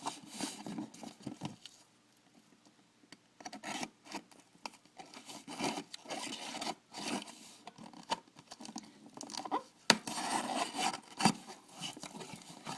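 A shipping package being opened by hand: irregular rustling, scraping and tearing of packaging with scattered sharp clicks, quieter for a moment about two seconds in and busier near the end.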